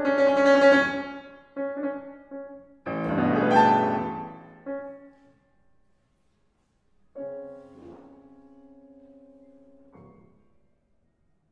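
Solo piano playing a contemporary classical piece. Sustained chords give way to a loud, dense chord about three seconds in that rings and dies away into silence. A softer held chord comes in about seven seconds in, with a brief extra touch near ten seconds before it fades out.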